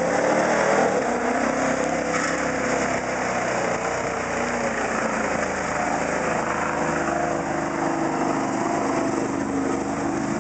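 1992 Ford F-250's stock fuel-injected 460 V8 running at high revs as the truck plows through a mud pit, its 35-inch Bogger tires spinning and throwing mud. The engine note holds high, its pitch wavering a little as the tires dig.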